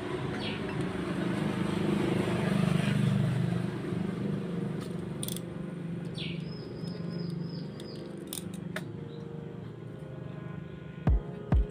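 A low engine rumble swells and fades over the first several seconds, with a few short high chirps and sharp light metallic clicks from hand tools working a motorcycle cylinder head's valve spring compressor and valve keepers. Dull heavy thumps come near the end.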